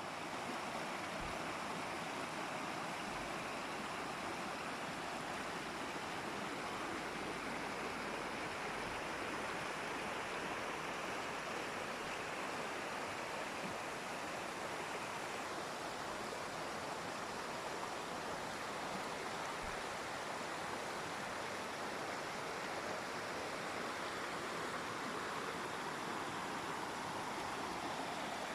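Waterfall rushing, a steady even roar of falling water with no breaks.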